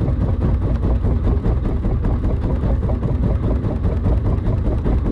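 Small fishing boat's engine running steadily, a low, continuous rumble.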